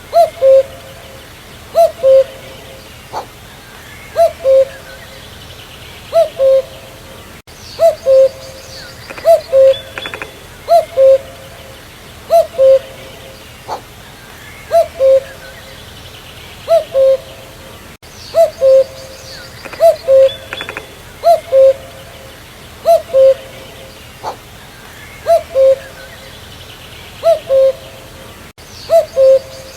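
Common cuckoo calling its two-note "cu-coo", the second note lower than the first, repeated over and over about every one to two seconds. Faint higher chirps of other birds are in the background.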